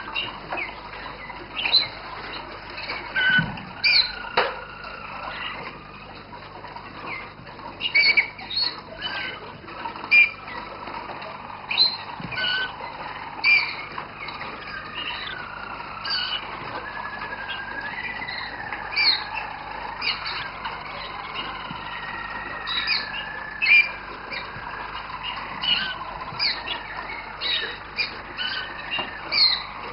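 Roller canaries singing: long, wavering rolled notes held for several seconds, broken by many short, sharp higher chirps.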